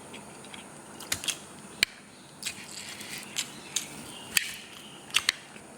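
Close-miked eating sounds of someone chewing kolo mee noodles: irregular wet clicks and smacks of the mouth, about one or two a second, with a couple of brief soft slurps.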